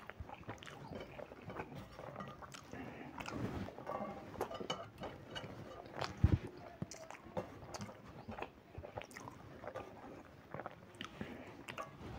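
Close-up chewing and mouth clicks of a person eating rice by hand, with fingers gathering rice on a stainless steel plate. A single heavy thump comes a little past halfway.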